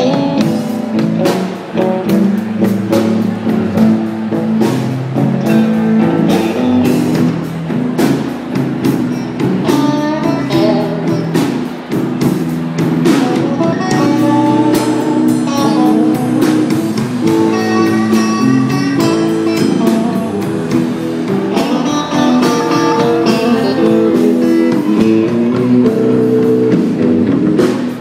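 A live band playing a blues number: amplified Stratocaster-style electric guitars, bass guitar and drum kit. Lead guitar lines rise above the band several times.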